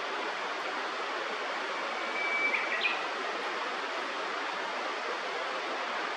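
Steady rush of flowing river water, with a brief bird call a little over two seconds in: a short held whistle followed by two sharp notes.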